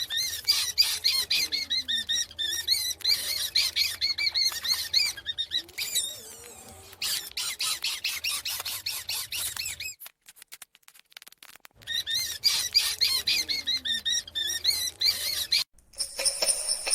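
A litter of young kittens mewing and squeaking: many quick, high-pitched calls overlapping one another. They break off for a couple of seconds partway through, then resume.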